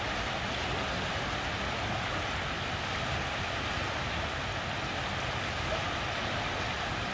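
Steady, even rushing of fast-flowing floodwater in a swollen river.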